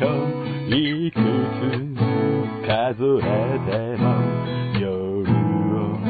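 Acoustic guitar strumming chords under a melody line that slides and wavers in pitch, the instrumental lead-in of a home-recorded song demo before the vocal enters.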